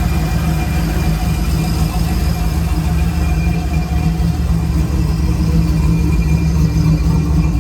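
LS3 V8 engine of a box Chevy idling steadily and loudly.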